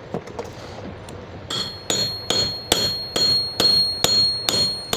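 Hammer blows on a steel drift, driving a bush into a submersible pump's non-return valve (NRV) housing. From about a second and a half in there are nine or so evenly spaced strikes, roughly two and a half a second, each with a short high metallic ring.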